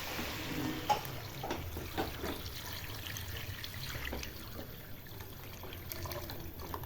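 Water poured and trickling into a cooking pot, the pour fading out about a second in, followed by scattered light knocks of a utensil.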